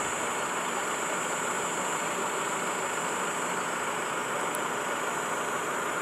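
Vehicle engine idling steadily, with a steady high-pitched whine above it.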